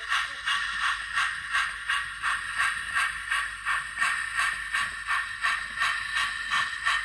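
On30 model steam locomotive chuffing steadily as it runs, about two chuffs a second.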